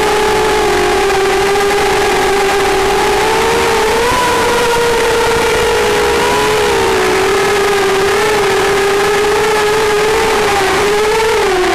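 FPV drone's electric motors and propellers whining steadily, a few close pitches drifting up and down with the throttle, with a brief rise about four seconds in.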